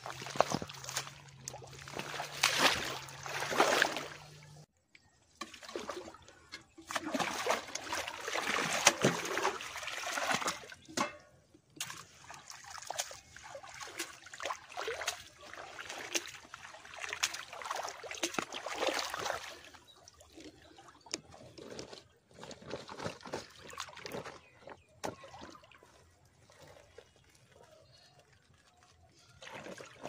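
Water splashing, sloshing and trickling as a round hand net is worked and lifted out of shallow river water, in several bursts. It then grows quieter, with scattered small clicks.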